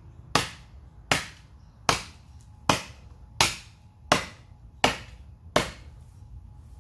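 Khukuri blade chopping into a hard, dead wooden stump: eight quick, light wrist-flick strikes, about one every three-quarters of a second.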